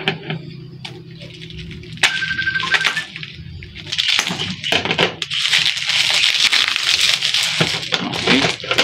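Plastic packaging wrap crinkling and crackling as it is pulled off a boxed camera, with scattered clicks early on that thicken into dense crackling over the second half.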